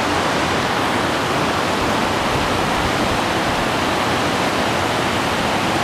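Mountain river rushing over shallow rock ledges and riffles: a steady, even roar of whitewater.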